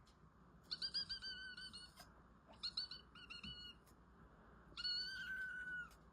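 A pet crying in high, thin, plaintive calls: a run of short cries, a few more about three seconds in, and one long drawn-out cry about five seconds in. The animal has climbed up somewhere and is calling because it cannot get down.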